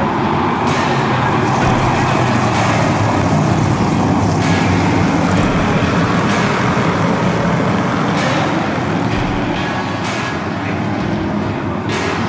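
A field of modified and stock race cars running laps on a short oval. The engines blend into one loud, steady noise, with individual cars swelling briefly as they pass close, several times.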